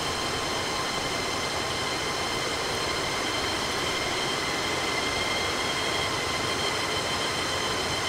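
Steady roar of a large waterfall, an even rushing noise with a few faint steady high tones on top.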